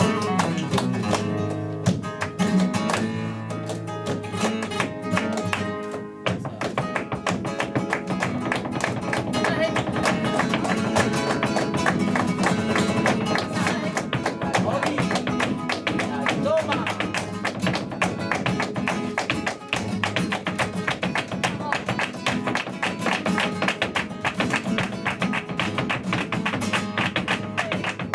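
Flamenco guitar playing a soleá. About six seconds in, rapid sharp percussive strikes join it and run on under the guitar.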